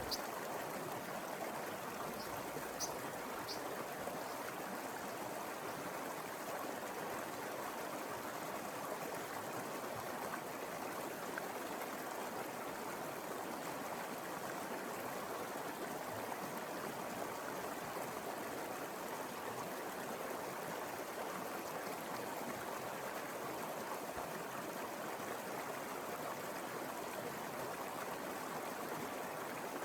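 Mountain river flowing steadily, an even rushing of water over its bed, with a few faint high ticks about two to three seconds in.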